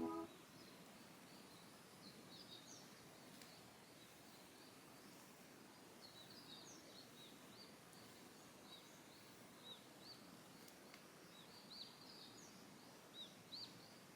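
Faint chirping of small birds: many short, high chirps, sparse at first and busier after the first few seconds, over a low steady hiss.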